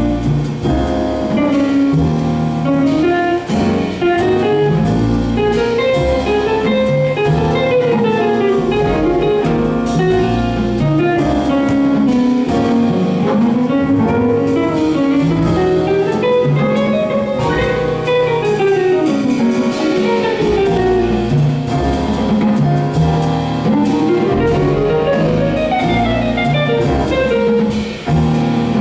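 Live big band jazz: a hollow-body electric guitar plays a solo of quick running lines that rise and fall, over drum kit and double bass.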